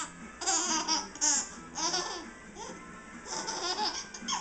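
Infant laughing in a string of short, wavering bursts of giggles, about one every half second to second.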